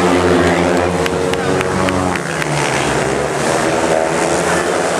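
Speedway motorcycles' single-cylinder engines racing on a dirt oval, running hard as the bikes pass, with the engine note dropping about two seconds in. A few sharp clicks sound in the first two seconds.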